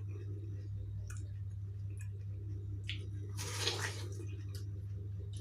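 Wet chewing of juicy watermelon, with a few small clicks and one louder, juicy slurping bite about three and a half seconds in, over a steady low hum.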